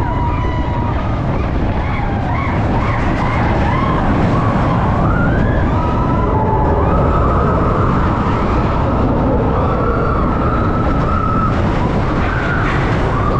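Roller coaster train running at speed, with a loud rushing of wind and track rumble, and riders screaming and whooping in long cries that waver up and down in pitch.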